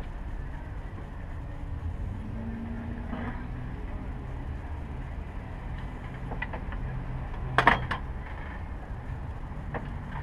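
Hand tools working an alternator mounting bolt loose: scattered light metal clicks and one sharp metallic clank about three-quarters of the way through, over a steady low background hum.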